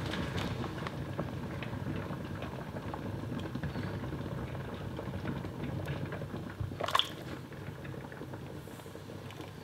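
Water boiling in a stainless steel stockpot holding submerged glass jars during water-bath canning, a steady bubbling. A single sharp clink about seven seconds in as a jar is lifted out with a jar lifter.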